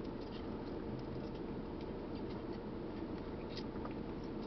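Steady low hum of a car cabin, with a few faint small ticks and clicks.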